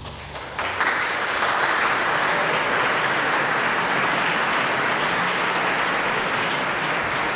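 Audience applause breaking out just under a second in, as the orchestra's last chord dies away, then holding steady: the audience's response to the end of the aria.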